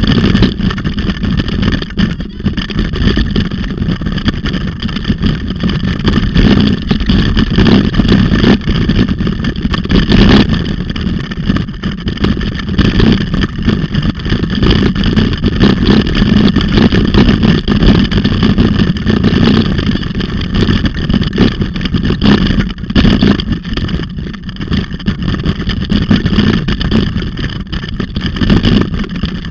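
Continuous rumble and rattle of a bicycle rolling over a rough dirt road, picked up by a camera mounted on the bike, with wind buffeting the microphone and frequent small knocks from the frame and tyres.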